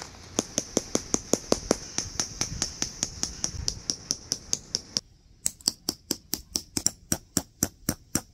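A rapid, even series of sharp clicks or taps, about five a second. The background hiss cuts out suddenly about five seconds in while the clicking continues.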